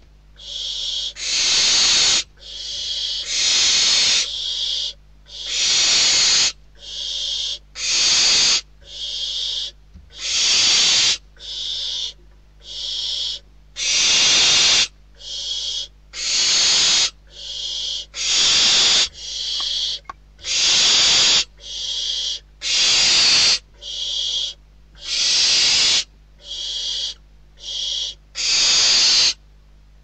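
Downy barn owl nestlings giving rasping, hissing begging calls one after another, about one a second. Long loud hisses alternate with shorter, fainter ones, as from more than one chick.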